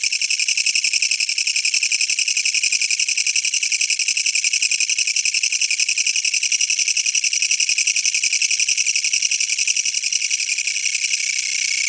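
Japanese katydid (kutsuwamushi, Mecopoda niponensis) singing: a loud, high-pitched rasping buzz made of rapid pulses, which runs together into a denser, more continuous buzz near the end.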